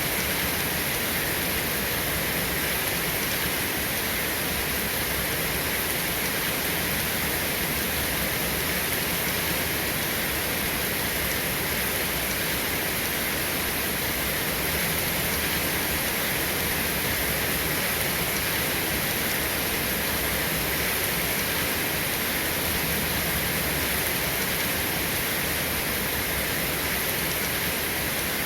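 Steady rain falling, an even hiss with no changes and no thunder.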